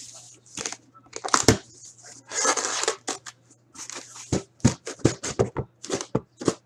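A box cutter slitting the taped seams of a cardboard case, the flaps being pulled open and shrink-wrapped card boxes slid out and set down: scratchy scrapes and tearing, with a longer tearing scrape about two and a half seconds in and a run of light knocks in the second half.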